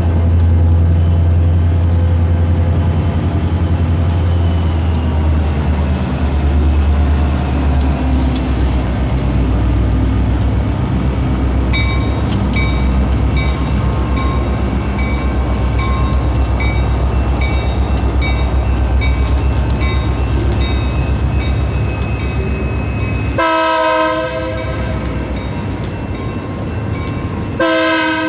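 Diesel freight locomotive working with a loud, deep engine rumble as it approaches. A bell dings steadily from about twelve seconds in, and the air horn sounds twice near the end, a short blast and then a second that carries on.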